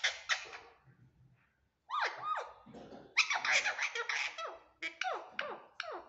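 Caged pet parakeet calling: a quick run of harsh chirps, a pause of about a second, then more squawks and short calls that each slide down in pitch.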